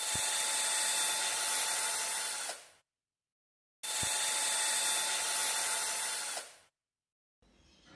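Ecosen cordless drill/driver run in two bursts of about three seconds each as a test. The motor gives a steady whine that starts at once and winds down when the trigger is let go.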